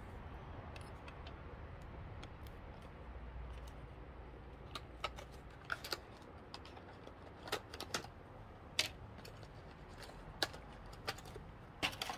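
Scattered light clicks and taps at irregular intervals through the second half, over a low steady hum.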